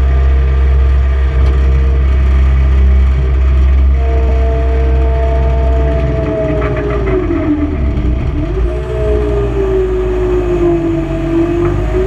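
Skid steer loader's engine and hydraulics running, heard from inside the open cage cab: a low rumble under a steady whine. About seven seconds in the whine sags in pitch and then climbs back up, with a brief rattle as it starts to drop.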